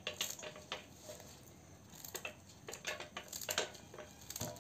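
A small hand-held knife cutting through red amaranth stems pressed against the thumb: a string of light, irregular clicks and snips, with cut pieces dropping into a steel bowl.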